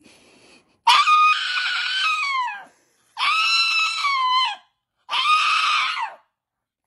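Pug dog howling: three long high-pitched howls, each dropping in pitch at its end, with short pauses between them.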